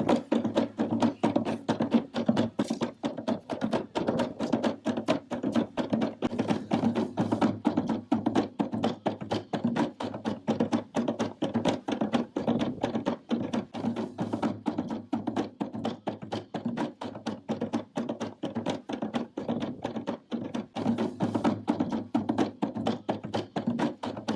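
Music with a fast, steady percussion beat of sharp tapping strikes.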